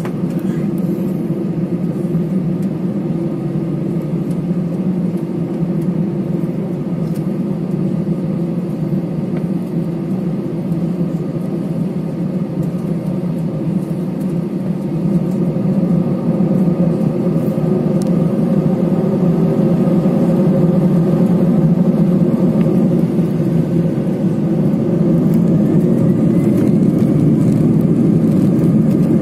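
Steady jet engine drone heard from inside an airliner cabin while the plane taxis, growing a little louder about halfway through, with a faint rising whine near the end.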